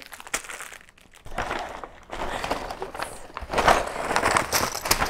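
Wrapping paper and ribbon rustling and crinkling as a gift is unwrapped by hand, in irregular bursts that grow louder in the second half, with a few sharp clicks near the start.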